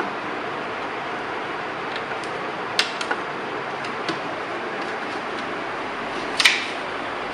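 A few light plastic clicks from a document holder being handled as its arm and stand are moved, with one sharper click near the end, over a steady background hiss.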